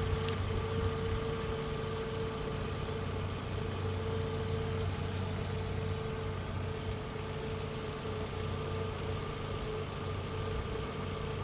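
A car engine idling steadily: the running donor vehicle hooked up by jumper cables to a car with a dead battery.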